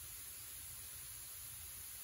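Steady hiss of room tone with a low rumble underneath; no distinct sound event.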